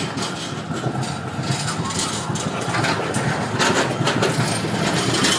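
Articulated city tram rolling past close by on street tracks: a steady rumble of steel wheels on rail with several short knocks, growing louder toward the end.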